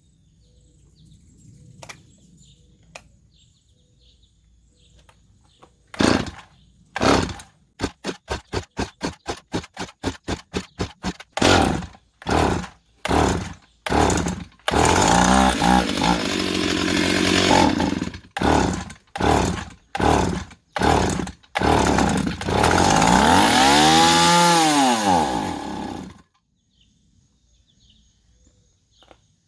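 Stihl 028 two-stroke chainsaw being started: a run of pops and short sputtering bursts, then it catches and runs for a few seconds, stumbles back into sputters, runs again with its pitch rising and falling, and cuts off suddenly. The saw's reported fault is that it starts and then cuts off.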